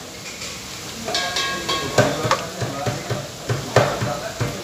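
Metal spoon stirring and tossing noodles and vegetables in a large aluminium pan, knocking against the pan about three times a second from about two seconds in.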